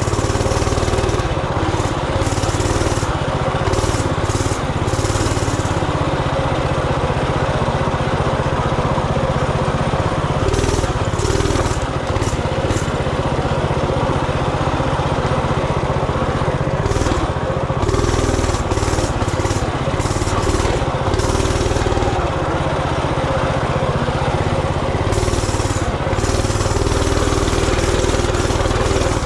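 Coleman RT200 minibike's small single-cylinder four-stroke engine running steadily while the bike is ridden, at a fairly even pitch with small rises and falls.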